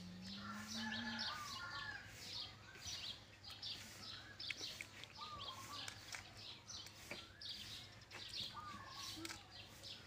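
Small birds chirping over and over in the background, in quick short calls, with a few faint clicks scattered through.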